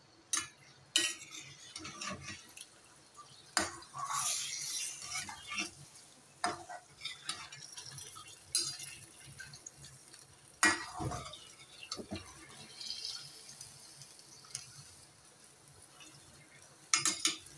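A perforated steel slotted spoon stirs chicken pieces in oil and water in a steel karahi. The spoon knocks and scrapes against the pan several times, with the sharpest clanks about 11 seconds in and near the end.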